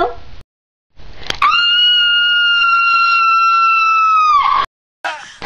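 A woman's long, high-pitched scream, held on one pitch for about three seconds and dipping slightly as it cuts off.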